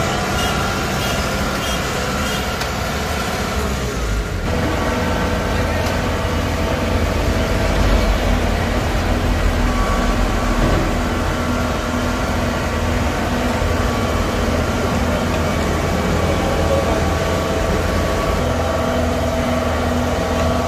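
Kubota DC95GM combine harvester's diesel engine running steadily under load as the crawler-tracked machine climbs steel ramps onto a flatbed truck, its pitch shifting slightly a few times.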